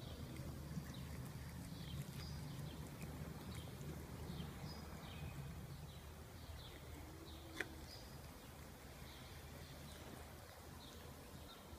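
A cat eating wet food, with soft chewing and smacking up close. Small birds chirp in short repeated notes throughout, and a single sharp click sounds about two-thirds of the way through.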